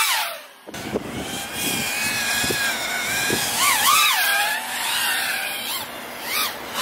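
FPV quadcopter drone's motors and propellers whining, the pitch swinging up and down as the throttle changes. The whine cuts in suddenly under a second in.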